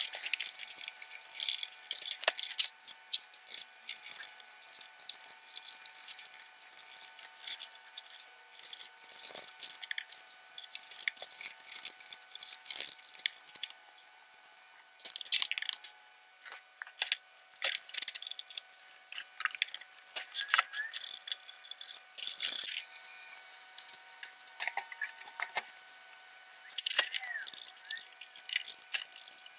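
Sped-up clicks, taps and rattles of small plastic and metal parts of an Elna sewing machine being handled as the bobbin case is taken out and the hook area is brushed of lint and oiled.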